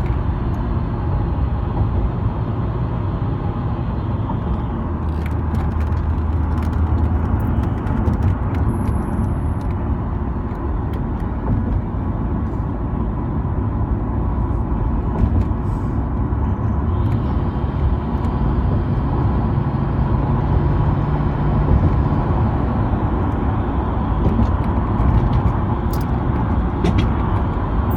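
A car driving along a highway, heard from inside the cabin: a steady rumble of engine and tyre road noise, with low hums from the engine and passing traffic that rise and fade.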